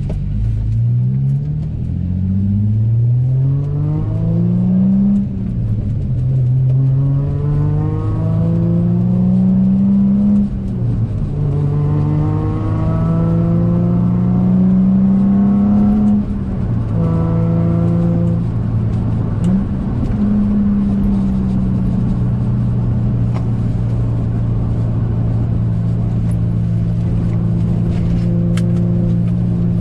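Infiniti coupe's V6 engine heard from inside the cabin, accelerating through the gears of a manual gearbox: the engine note rises several times, dropping back at each shift. For the last ten seconds it holds steady at cruising speed.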